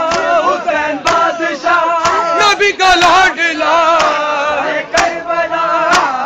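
Men's voices chanting a Shia nauha (Muharram lament) together, with a sharp slap about once a second keeping time: the beat of matam, chest-beating to the chant.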